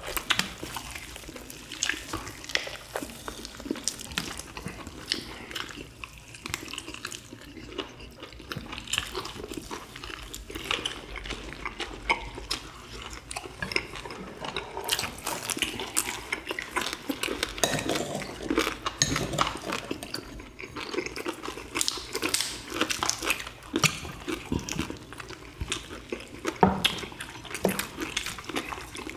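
Close-miked eating sounds: people chewing and tearing apart boiled chicken with many small wet clicks and crackles. Near the end a spoon clinks and scrapes in a bowl of broth.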